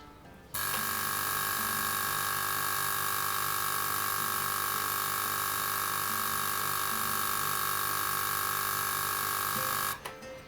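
Volcano Vaporizer's electric air pump switched on, running with a steady hum and hiss for about nine seconds, then cut off.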